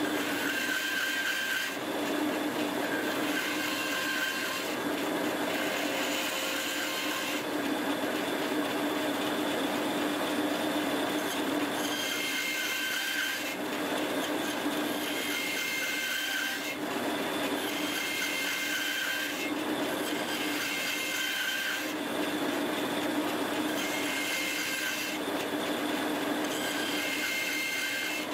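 Bandsaw running steadily while a small turned wooden ball is fed into the blade again and again, cutting a grid of shallow kerfs: a constant motor hum with a rasping cut about every two seconds.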